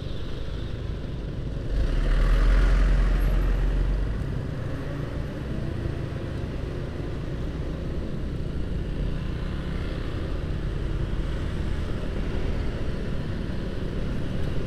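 Motorcycle riding in slow, congested city traffic: a steady mix of engine and surrounding traffic noise. About two seconds in there is a louder stretch of low rumble and hiss lasting about two seconds.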